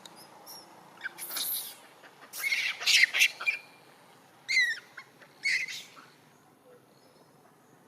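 Monkeys giving a few short, high-pitched screeching calls in quick bursts, the loudest cluster about three seconds in and one call bending down and up in pitch, typical of a troop's alarm or distress calls.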